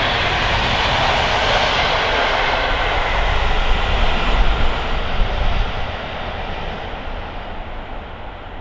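Passenger train coaches rolling past at speed on the rails, then receding: a steady rush of wheel noise that fades away over the last few seconds.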